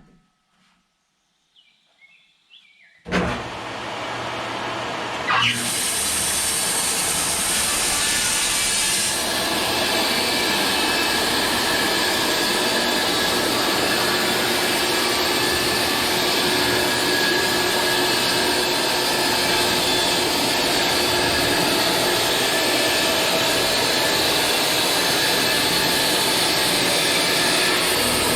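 Portable bandsaw mill running: after a few seconds of near silence it comes in suddenly and loud, steps up a little about two seconds later, then runs steadily.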